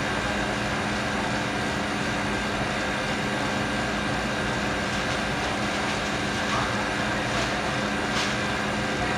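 Steady hum and whir of commercial kitchen machinery running, with a faint brief hiss near the end.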